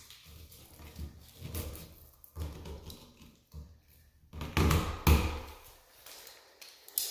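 Hands stripping the plastic sheathing off Romex cable and handling the wires: irregular rustling and light knocks, with two louder thumps a little past the middle and a sharp click near the end.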